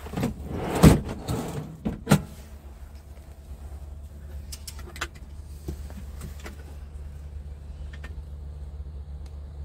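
Scania R truck's diesel engine idling, a steady low hum heard inside the cab. A few heavy knocks come in the first two seconds, the loudest about a second in, followed by a few light clicks.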